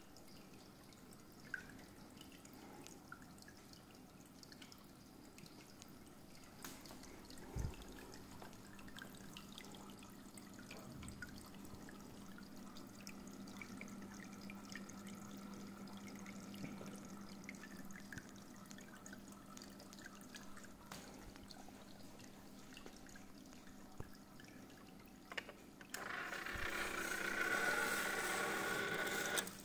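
Aquarium filter return water trickling and splashing into the tank through a spray bar, faint and steady, with a low hum. About four seconds before the end, a Warmtone automatic fish feeder's motor whirs loudly for a few seconds as it turns its hopper and drops food pellets into the water, then stops sharply.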